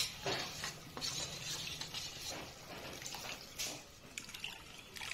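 A sharp clink of steel at the start, then soft liquid sounds and scraping as rice flour is poured and spooned from a steel bowl into a pan of simmering curry.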